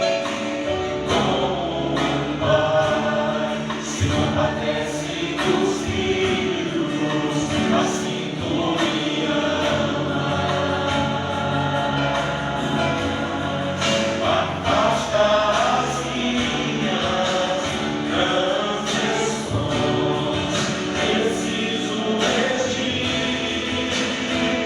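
Gospel worship song: a group of voices singing together over instrumental accompaniment with a regular beat.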